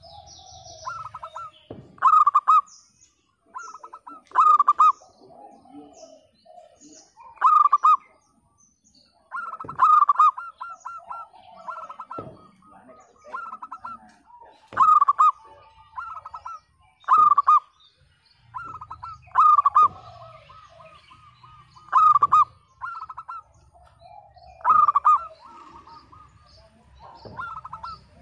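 Local-strain zebra dove (perkutut) cooing in song: a rapid stuttering run of clear notes repeated in loud phrases about every two to three seconds. Faint higher chirps of other birds are heard between the phrases.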